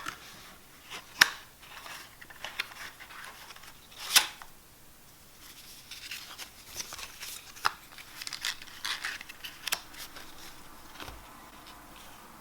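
A deck of playing cards and its paper tuck case being handled: sliding and scraping with a series of sharp snaps, the loudest about a second in and at about four seconds, and a cluster of smaller clicks between about six and ten seconds.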